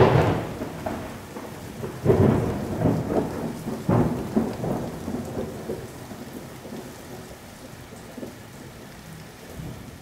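Thunder with rain: a sudden crack, then a rolling rumble that swells again about two and four seconds in and slowly dies away.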